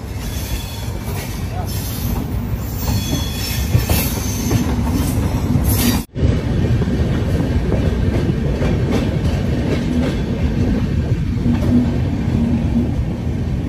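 Indian Railways passenger train running, heard from an open coach door: a steady rumble and rattle of wheels on the rails, with a thin high squeal of the wheels over the first half. The sound drops out for a moment about six seconds in, then the rumble carries on.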